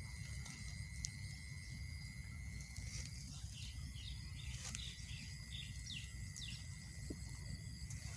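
Rural pond-side ambience: a steady high-pitched insect drone throughout, a few short, falling bird chirps in the middle, and a low rumble of wind on the microphone.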